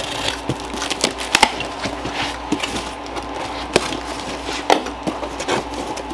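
A cardboard box and its packing being opened by hand: a string of sharp cracks, snaps and rips at uneven intervals, over a steady low hum.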